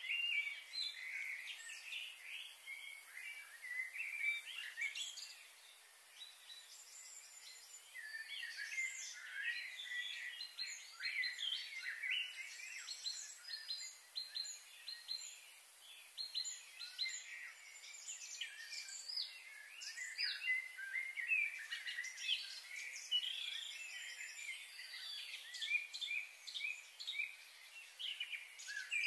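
Many small birds chirping and twittering continuously, a busy chorus of short, quick calls, over a faint steady high hiss.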